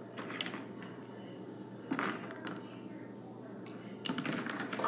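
Light clicks and taps of small hard objects being handled. They come in short clusters: near the start, about two seconds in, and a longer run near the end.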